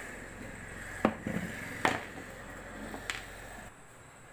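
A few sharp knocks and clicks from handling a mixer grinder during a coupler repair, four in all, over a steady background hum that stops shortly before the end.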